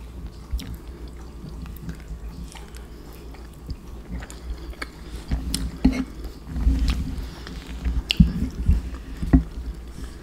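Close-miked chewing of soft, saucy macaroni and cheese: wet, squishy mouth sounds with small clicks, heavier in the second half.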